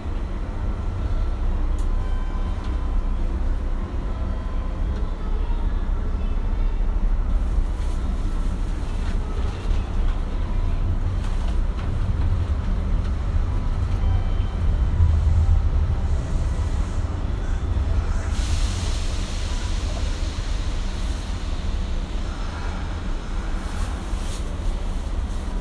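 Inside a Kintetsu 1420 series electric train: a steady low rumble with faint thin tones above it. About two-thirds of the way through, a hiss rises and fades over a few seconds.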